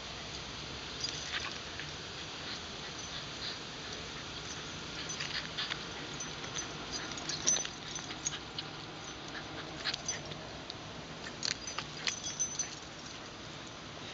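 Two wire fox terriers on leashes making brief whimpers and other small dog noises, over a scatter of short sharp clicks and scuffs.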